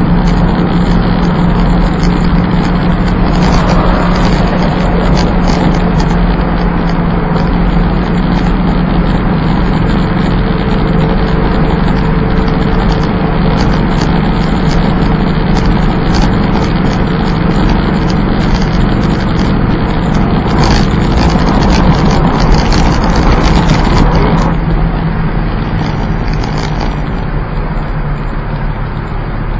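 Plymouth Volaré's engine and road noise while driving at a steady pace. It swells a little louder for a few seconds late on, then drops back and quietens over the last few seconds.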